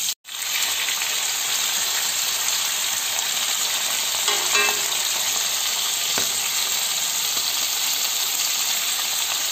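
Chicken pieces with sliced onions and bay leaves frying in oil in a wok, a steady sizzle. The sound drops out for a moment just after the start.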